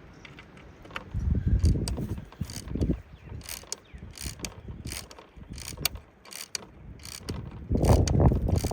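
Irregular mechanical clicks and ratcheting from the vintage No. 10 Cirkut panoramic camera as it is handled and set up, with two louder stretches of low bumping and rumbling, one in the first few seconds and one near the end.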